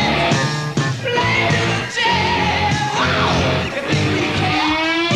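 Rock band playing: a male lead vocal sung and partly shouted over electric guitar, bass and drums, with sliding notes about three seconds in and again near the end.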